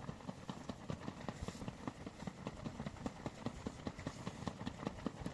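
Footsteps walking on a path, a steady run of short thuds at about four a second.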